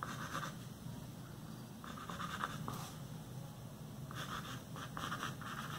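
Pencil scratching on paper in groups of short strokes: one near the start, another about two seconds in, and a longer run from about four seconds on, as lines are drawn.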